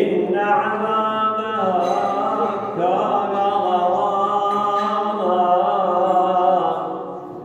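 A man's voice reciting the Quran in Arabic in slow, melodic chant (tilawah): one long phrase of held, ornamented notes that fades out near the end.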